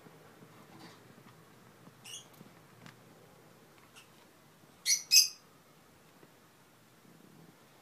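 Kitten giving short, high-pitched squeaky mews: a faint one about two seconds in, then two loud ones in quick succession around five seconds in.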